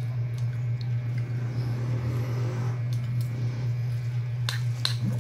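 A baby mouthing and chewing a piece of sticky rice cake, with soft wet smacking and two sharp clicks near the end, over a steady low hum.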